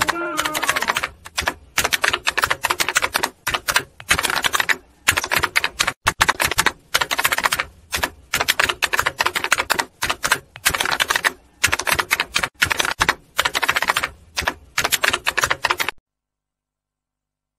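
Typewriter sound effect: rapid keystroke clicks in bursts with short pauses between them, cutting off to silence about a second and a half before the end.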